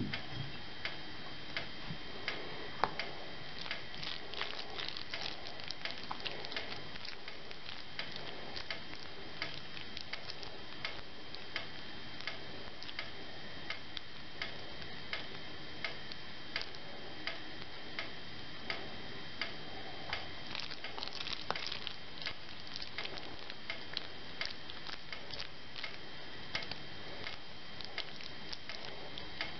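Even, regular ticking, about once a second, over a faint steady hiss with a thin high tone beneath.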